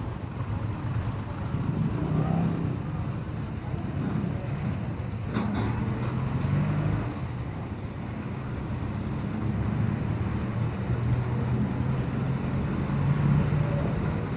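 Engine and road noise heard from a motorcycle riding in slow town traffic close behind a jeepney: a steady low engine drone whose pitch shifts as the speed changes. A single sharp click about five seconds in.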